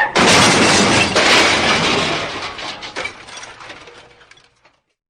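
Car-crash sound effect: a loud smash with breaking glass, a couple of further knocks as debris clatters, fading out over about four seconds.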